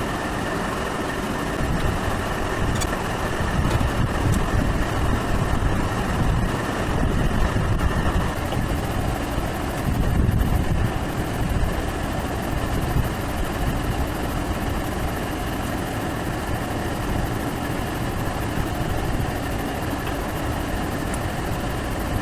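Steady low mechanical rumble of a running machine, with a few faint clicks.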